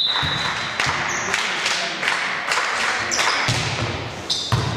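Basketball game in a gym: a ball bouncing on the court with repeated thuds, and short high squeaks.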